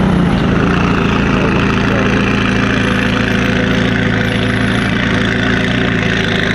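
A McLaren's twin-turbo V8 running steadily at a low idle as the car creeps away at walking pace.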